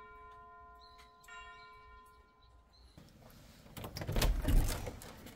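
Soft keyboard music fades out on a last held chord, then a door handle is worked and a door is opened: a cluster of clicks and a low thud a little over four seconds in.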